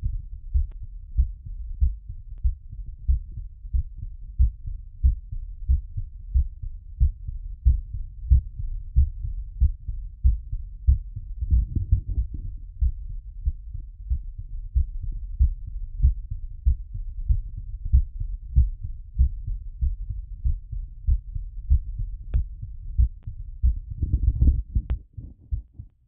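Heartbeat heard through a stethoscope during recovery after exercise: a regular, steady train of low thudding beats. A louder swell of noise comes about halfway through and again near the end.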